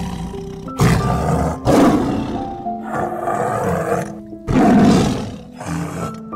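A large animal giving a series of loud, harsh, roaring calls, each about a second long, the loudest about a second and four and a half seconds in, over soft background music with held notes.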